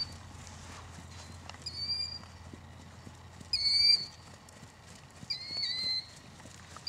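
Horse trotting on sand arena footing, its hoofbeats soft and muffled, with a high, thin squeaking call repeated four times, about every one and a half to two seconds, louder than the hooves.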